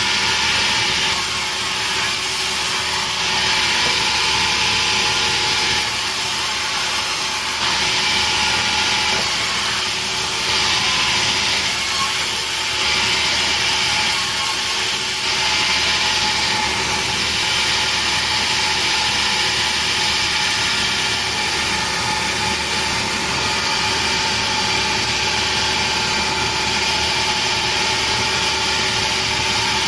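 Sawmill running, its saw cutting petai wood: a steady machine drone with a hiss that comes and goes in stretches of a second or two through the first half, then settles to an even run.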